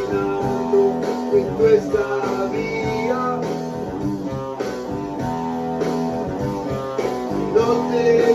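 Guitar playing an instrumental passage of an improvised song, with sustained notes.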